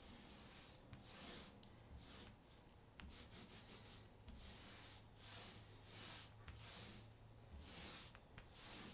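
Small paint roller rolling wet topside paint onto a boat hull, back and forth, with a faint hiss on each stroke, about one to two strokes a second.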